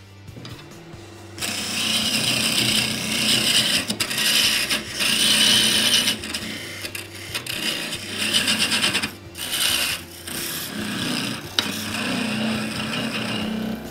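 Wood lathe running with a steady motor hum while a tool is held to the spinning wood: a loud rasping hiss starts about a second and a half in and goes on in several passes, with short breaks between them.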